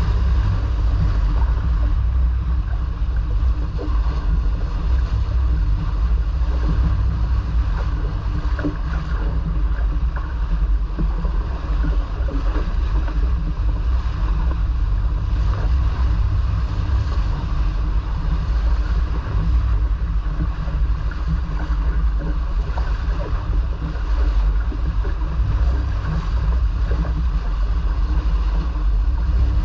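Steady low rumble of wind on the microphone over water rushing along a sailboat's hull as it sails.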